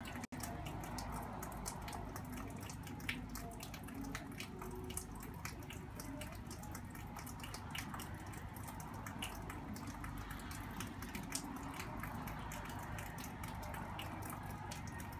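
Rain dripping off the edge of a patio roof: frequent, irregular drops tapping over a steady hiss of falling rain.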